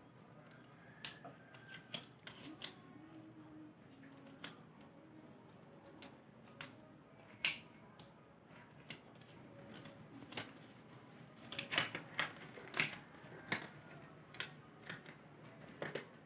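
Irregular light clicks and taps of small objects being handled, with a denser run of sharper snaps about eleven to fourteen seconds in.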